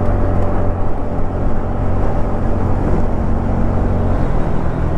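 TVS Ntorq 125 scooter's single-cylinder engine running through its stock exhaust while accelerating, heard from the rider's seat. The engine note shifts a little about four seconds in.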